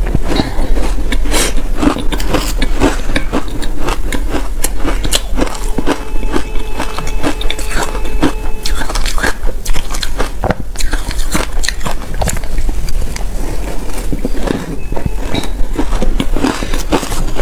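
Close-up crunching and biting of shaved ice: dense, irregular crunches of ice being bitten and chewed. A faint steady tone sounds for a few seconds in the middle.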